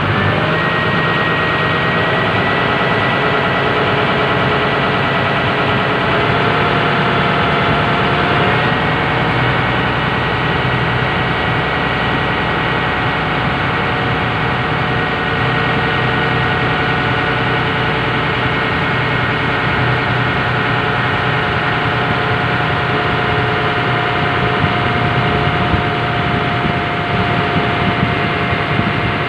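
Boat engine running steadily, heard from on board, with a low rumble and a steady hum whose pitch shifts slightly a few times in the first several seconds.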